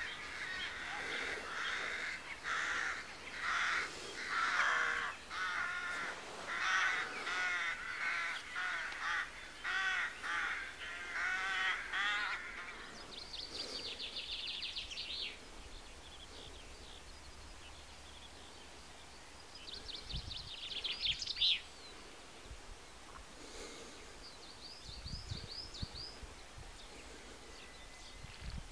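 Crows cawing over and over in quick succession for roughly the first twelve seconds. Small songbirds follow with short high trills and chirps at a few moments.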